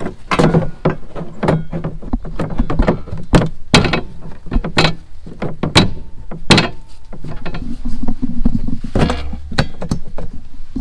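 A series of irregular knocks and clunks from something being handled and fitted in place, with a denser cluster of strikes near the end.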